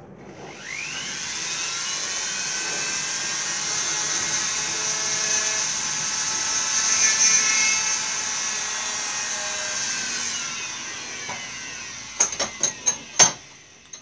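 Rotary tool on a flexible shaft spinning up with a rising whine and running at a high, steady speed while it drills small pilot holes into a carved wooden stick head, then winding down. A few sharp clicks and knocks come near the end.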